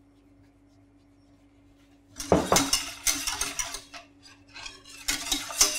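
Wire whisk stirring and clattering against the sides of a stainless steel saucepan of warm ice-cream base (milk, cream and sugar). It starts about two seconds in, after a near-quiet stretch with a faint steady hum.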